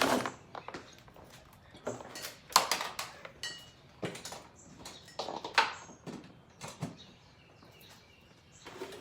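Scattered clicks and rustles of a MacBook and its charger cable being handled as the charger is plugged in.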